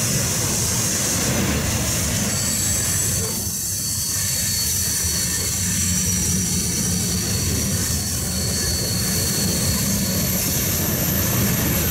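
Freight train cars rolling past on steel rails: a steady low rumble of wheels on track, with thin high-pitched wheel squeals held above it.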